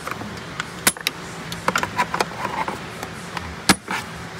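Plastic retaining tabs on a car's air filter housing being pried and popped off with a flat metal tool: a string of sharp clicks and snaps, the loudest about a second in and near the end.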